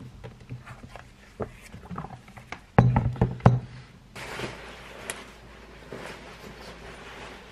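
Light taps and two heavy thumps as an iPad in its folio case is handled and closed on a wooden desk, then steady rustling of a padded jacket being put on from about four seconds in.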